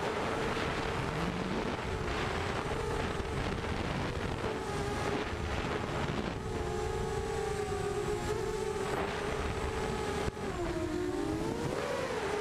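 Racing quadcopter's motors and propellers buzzing steadily, heard from the onboard camera, over a rush of wind noise. The pitch wavers with the throttle, and near the end it drops and swings back up.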